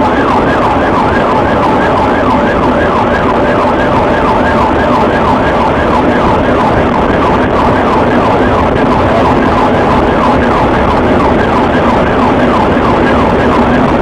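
Police siren in a rapid yelp, sweeping up and down about four times a second, heard from inside the pursuing patrol car over the car's steady engine and road noise at speed.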